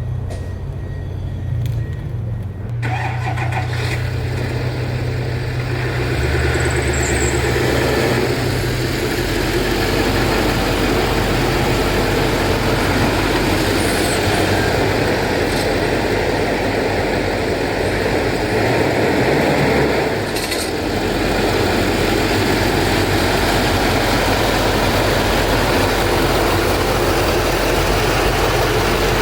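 A motor vehicle running and driving, with a steady engine hum under broad road noise that grows louder about three seconds in and dips briefly about two-thirds of the way through.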